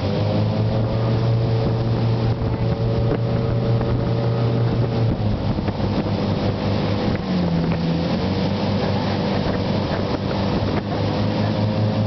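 Motorboat engine running steadily at speed while towing an inflatable tube, over the rush of its wake. About two-thirds of the way through, the engine's pitch dips briefly and then comes back up.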